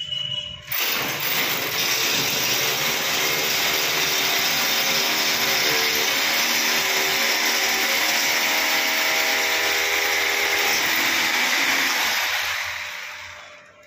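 Angle grinder running against steel: a loud steady hiss that starts abruptly about a second in and winds down near the end.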